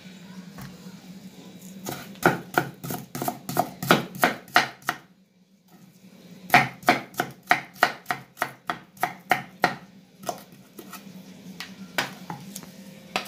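Kitchen knife chopping a white onion on a wooden cutting board: quick runs of blade strikes on the board, about four a second, with a short pause about five seconds in and a few looser cuts near the end.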